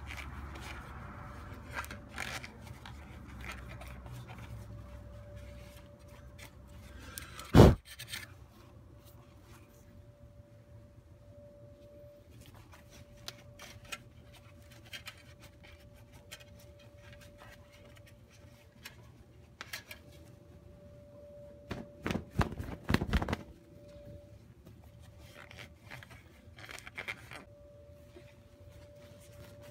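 Microfiber cloth rubbing and wiping over the plastic top of a car engine, with scattered small clicks and scrapes. A single sharp knock comes about a quarter of the way in, and a quick run of knocks a little past two-thirds through.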